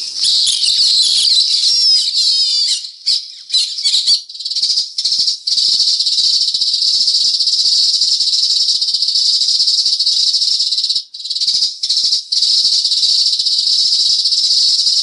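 Recorded sparrow calls played loud through the six-cone tweeter of a remote-controlled bird-lure speaker, a dense, sharp, high chattering of chirps with several short breaks. This is the test of a freshly fitted tweeter, run before the case is closed.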